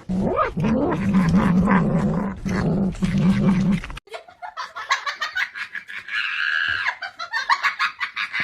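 A dog vocalising with a low, wavering sound for about four seconds, cut off abruptly, followed by a different, higher-pitched sound.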